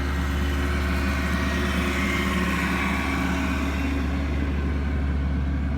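A vehicle engine idling with a steady low drone.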